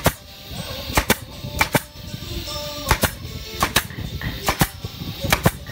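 Pneumatic brad nailer firing nails into the edge of a wooden cabinet: about seven sharp cracks, most of them doubled, spaced roughly a second apart.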